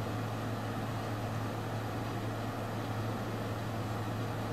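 Steady hiss with a constant low hum underneath, even throughout, with no speech, music or distinct events.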